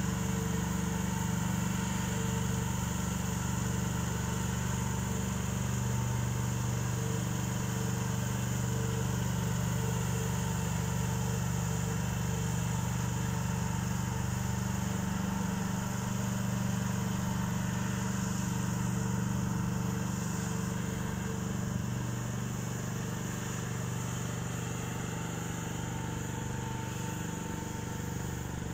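Steady hum of a truck-mounted Conrad C32 misting cannon running with its power generator while spraying water mist. The sound grows a little quieter after about twenty seconds as the truck moves away.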